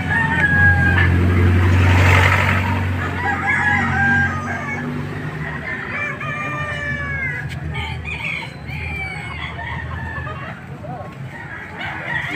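Roosters crowing and chickens clucking, several calls overlapping, over a low steady hum.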